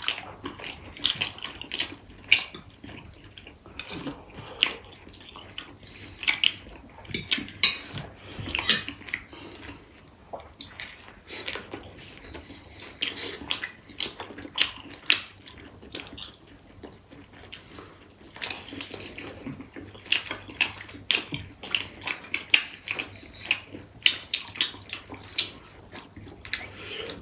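Close-up eating sounds of two people: noodles slurped, meat chewed and lips smacked in quick, irregular wet clicks, with now and then a fork clinking on a plate.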